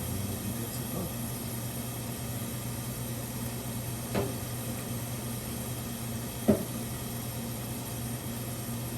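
Steady low mechanical hum with two brief knocks, about four and six and a half seconds in, the second louder.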